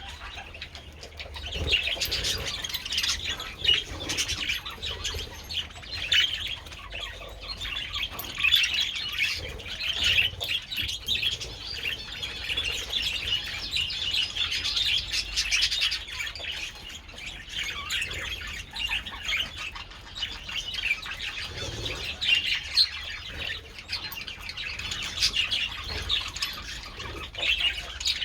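A colony of budgerigars chattering and chirping continuously, many birds at once, with the odd louder squawk.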